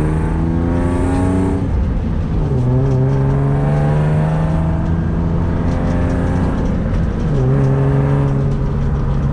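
Engine of a 1992 BMW E36 drift car accelerating through the gears. The pitch climbs steadily, drops at an upshift about a second and a half in, climbs again, and drops at a second upshift near the end.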